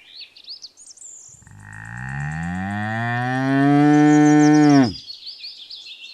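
A bull mooing: one long low moo of about three and a half seconds that rises in pitch and stops sharply, with high chirps before and after it.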